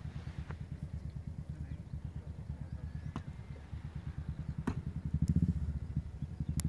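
An engine running steadily with a low, rapid, even pulse, getting louder about five seconds in. A few faint sharp clicks sound over it.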